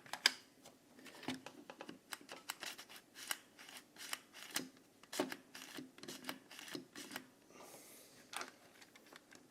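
Hands handling the plastic parts of a printer's waste ink pump unit: irregular light clicks and taps, the sharpest just after the start, with a short rustle near the end.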